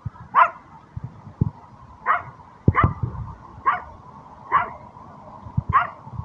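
A tiny toy dog yapping at a fox: six short, high-pitched barks, roughly one a second.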